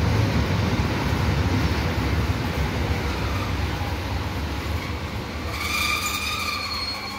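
Electric commuter train rolling along an underground station platform with a low rumble that slowly fades. About five and a half seconds in, a high squeal sets in from the train.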